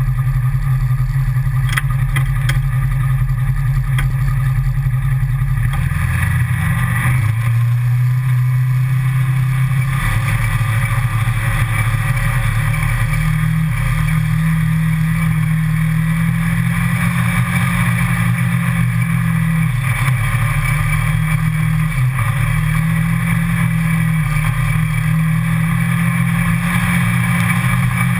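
Side-by-side utility vehicle's engine running loud and steady as it drives a rough dirt trail. Its note steps up about six seconds in as it picks up speed, then rises and dips a little with the throttle.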